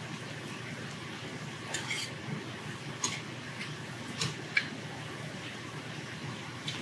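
Metal chopsticks and tableware clinking against a stainless steel bowl and dishes: about half a dozen light, sharp clinks at uneven intervals over a low steady room hum.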